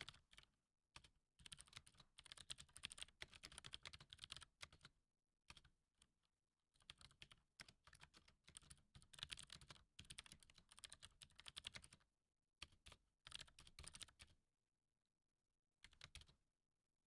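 Faint typing on a computer keyboard: bursts of rapid key clicks separated by short pauses.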